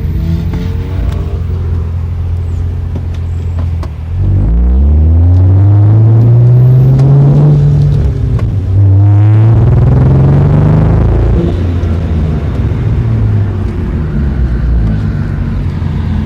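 A 2003 Hyundai Tiburon's engine, heard from inside the car, revving up under full throttle in second gear from about four seconds in. It dips briefly just before nine seconds in, climbs again, then settles back to steady running and road noise. This is the car that misfires when floored in second gear.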